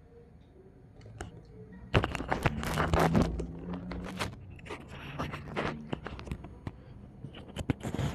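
Irregular rustling and scraping with many small clicks, starting about two seconds in, over a faint low hum.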